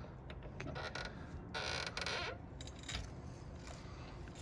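Hydraulic floor jack being pumped to lift a car, its handle and lifting mechanism making faint creaks and clicks, with a louder rasping noise of about half a second near the middle.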